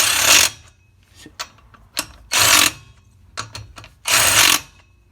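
Ratchet wrench clicking in three short bursts about two seconds apart as wheel lug nuts are run snug by hand, before final torquing.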